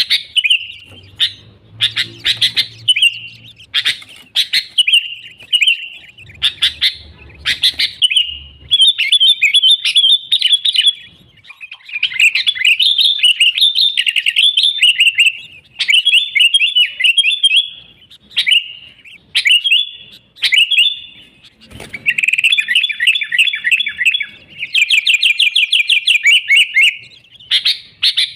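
Sooty-headed bulbul (kutilang) singing vigorously: loud repeated short chirping phrases, broken by longer rapid chattering runs in the middle and near the end.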